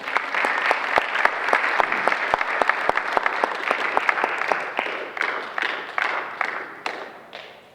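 Audience applauding to welcome a band onto the stage, dying away in the last few seconds to scattered single claps.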